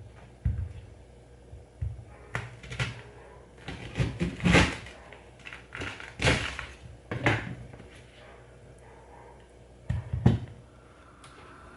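A string of irregular knocks and clunks of objects being handled and set down, the loudest clusters about four to five seconds in, around six and seven seconds, and again near ten seconds.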